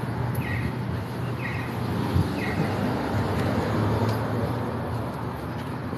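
Street traffic: a vehicle passing with a low engine hum and road noise that swells and then eases. Short high chirps repeat about once a second through the first half.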